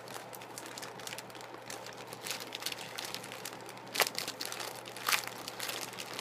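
Packing tape being picked at and pulled off a mailed package: a continuous crinkling and crackling, with two sharp rips about four and five seconds in.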